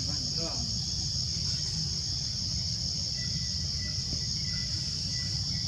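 Continuous high-pitched insect chorus, steady throughout, over a low, even rumble.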